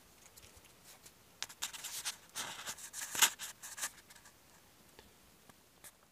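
Domestic rabbits gnawing at salt and a potato in a small glass dish: a couple of seconds of scratchy crunching and clicking in the middle, with faint scattered ticks around it.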